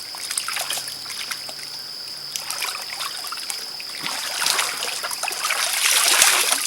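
Shallow stream water trickling and splashing, growing louder over the last couple of seconds, with a steady high insect buzz behind it.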